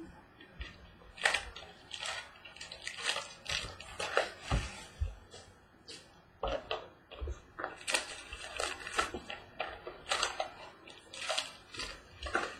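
Trading-card box packaging being handled and opened: irregular crackles and rustles of plastic wrap and cardboard.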